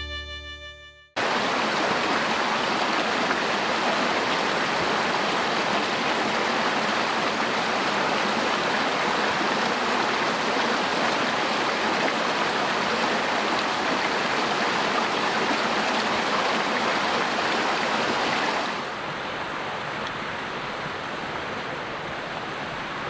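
Mountain creek rushing steadily, with the tail of fiddle music fading out just at the start. The rushing drops to a softer level about three-quarters of the way through.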